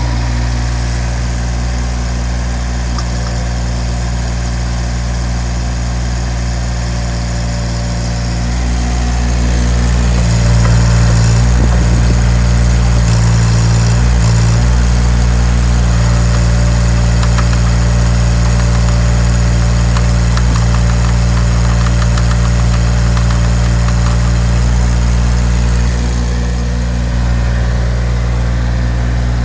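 Diesel engine of a JCB 8008 micro excavator running steadily. It grows louder about nine seconds in, with some knocking and clatter soon after, and settles back down near the end.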